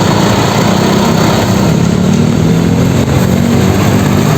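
Vehicle engine running steadily, loud and rough, cutting in and out abruptly like an added sound effect.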